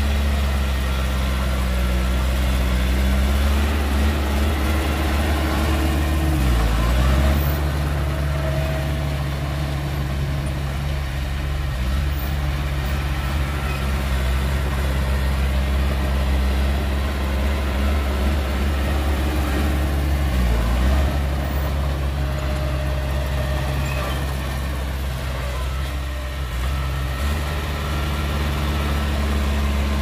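Heavy diesel engine of earthmoving machinery running steadily, its pitch dipping briefly and recovering twice, about 7 s and about 21 s in.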